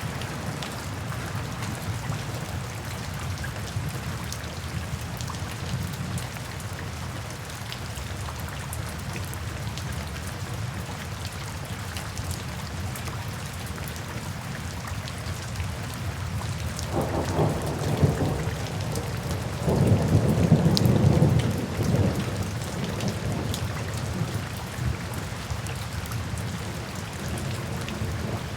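Steady rainfall with a rumble of thunder that builds about two-thirds of the way through, peaks for a few seconds, then fades back under the rain.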